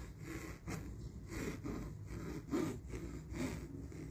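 Metal back scratcher scraping back and forth in uneven strokes, roughly two a second, the strongest about two and a half seconds in.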